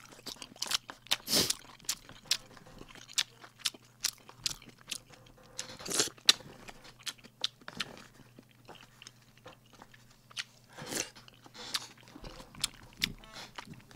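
Close-miked mouth sounds of a man eating noodles: wet chewing and lip smacks made of many small clicks. A few louder noisy bursts come about a second and a half, six and eleven seconds in; the one at six seconds matches a slurp of noodles.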